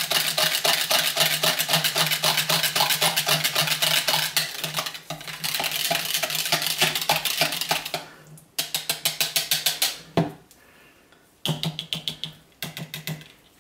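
A small whisk stirring soap batter in a container, clicking and scraping rapidly against its sides at about ten strokes a second, as colourant is mixed in. The stirring stops about eight seconds in, then comes back in two shorter bursts.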